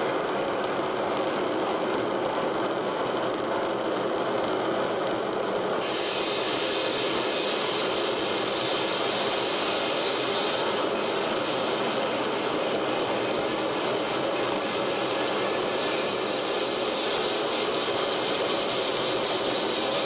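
Live harsh noise (Japanoise) from amplified electronics: a loud, unbroken wall of distorted noise. Its high end cuts out at the start and snaps back about six seconds in, with another abrupt shift a few seconds later.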